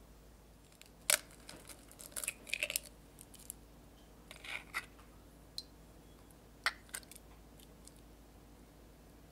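Raw eggs cracked on the rim of a glass bowl: a sharp tap about a second in, then crisp crackling as the shell is pulled apart and the yolk passed between the halves, and another sharp tap later on.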